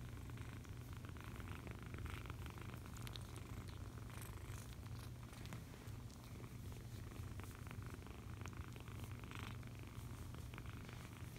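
Kitten purring steadily while being stroked, with light rustling of fur and blanket under the hand.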